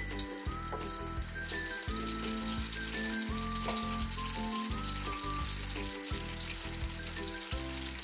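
Cumin seeds and green cardamom pods sizzling steadily in hot oil in a pot, the spices being tempered in the oil.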